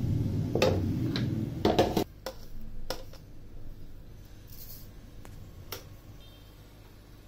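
A low rumble with a few sharp clicks that cuts off suddenly about two seconds in, then scattered light clicks and taps on a stainless steel plate as salt is added, with a brief soft hiss in the middle.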